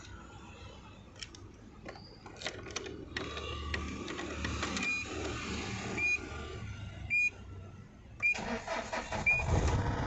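Tata 2.2 DICOR diesel engine cranked by the starter about eight seconds in, catching at once and settling into a steady idle. Starting on the first crank after a restart shows the ECM no-start fault is cured. Before it come a few sharp clicks and short electronic beeps.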